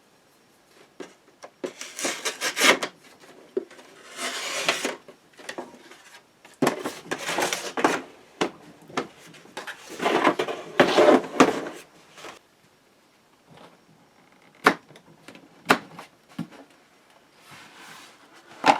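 Hands unpacking a tool case: bursts of rustling and rubbing as the contents are handled, followed later by a few sharp clicks about a second apart.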